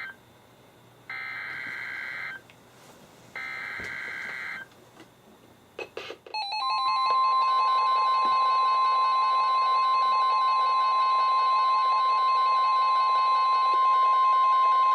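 NOAA Weather Radio emergency alert signal. Warbling digital SAME header bursts repeat about a second apart, the coded header that opens a new warning. About six seconds in, the steady single-pitch 1050 Hz warning alarm tone starts and holds.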